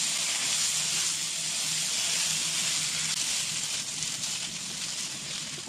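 Ground carrot and semolina sizzling in ghee in a nonstick pan as a spatula stirs them: a steady frying hiss that eases a little near the end.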